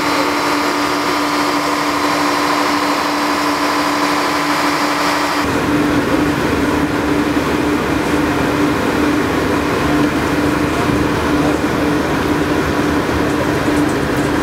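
Steady machinery hum from a ship's machinery space, its motors running with a few level tones. About five seconds in it changes abruptly to a rougher, fuller engine-like drone that keeps one steady low tone.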